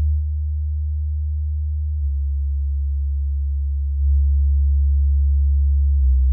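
Low, steady electronic sine tones, each held about two seconds before stepping to a new pitch, like a deep bass hum changing note every couple of seconds.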